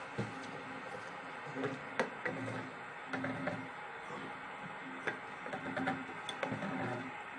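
Scattered plastic clicks and light knocks from handling and adjusting a toilet cistern's push-button flush mechanism, over a steady background hiss.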